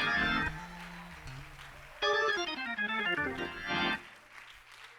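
Organ playing behind a sermon: a loud chord at the start, held low notes, then a louder run of chords about two seconds in with a falling line, fading away near the end.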